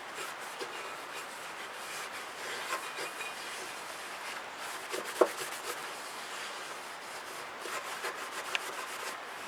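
Hand rubbing and scrubbing on the rusted metal parts of a kerosene heater, a steady scratchy friction sound with small clicks and one sharp knock about five seconds in.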